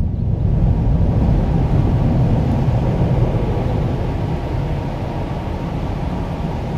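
Boeing 737-800's twin CFM56-7B turbofan engines, a low rumble that slowly fades as the airliner climbs away after takeoff.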